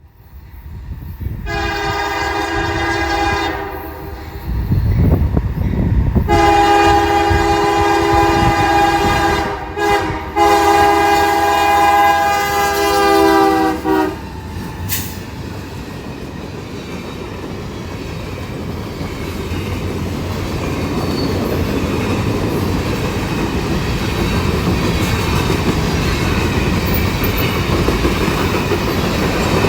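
CSX locomotive's Nathan K5HL five-chime air horn sounding a short blast, then a long held blast broken twice for an instant. After the horn stops, the train's rumble and wheel noise build steadily as it rolls by.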